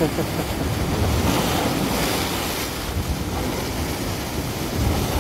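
Sea waves surging and splashing against the shore, with wind rumbling on the microphone.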